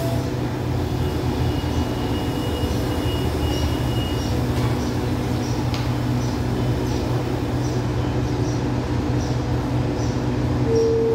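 Diesel express train standing at the platform with its engines running at idle: a steady low hum that does not change.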